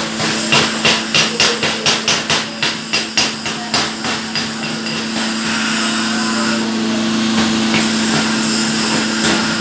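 Chipping hammer striking welding slag, about three sharp metallic knocks a second for roughly four seconds, then giving way to a steady hiss. A constant low machine hum runs underneath.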